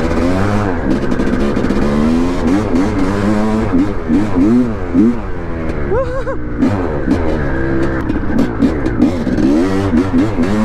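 1989 Honda CR500R's single-cylinder two-stroke engine, freshly rebuilt, revving up and down as the bike is ridden. Its pitch rises and falls again and again, with one sharp, high rev about six seconds in.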